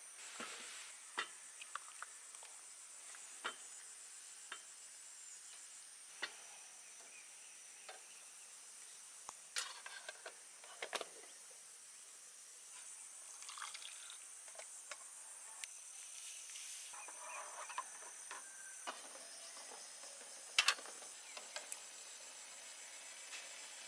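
Scattered light metal clinks and taps from an aluminium mess tin and its lid as they are set on a small gas camp stove and handled, over a steady high-pitched hiss. The loudest clinks come near the end.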